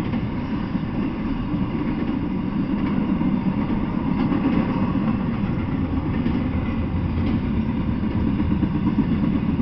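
Intermodal freight train cars, flatcars carrying highway trailers and containers, rolling past on the track: a steady low rumble of steel wheels on rails.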